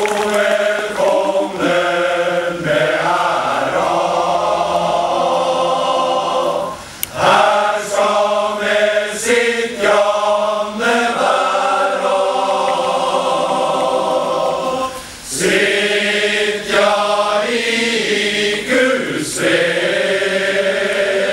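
Large male choir singing together, its phrases broken by short pauses about 7 and 15 seconds in.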